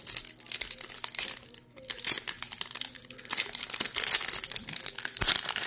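Silver foil wrapper of a baseball card pack being torn open and crinkled by hand: a run of sharp crackles, with a short pause a little under two seconds in.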